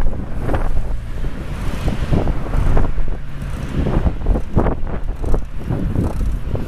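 Wind buffeting the microphone of a camera on a tripod clamped to a moving bicycle, a steady low rumble broken by irregular knocks and rattles as the mount jolts over the road.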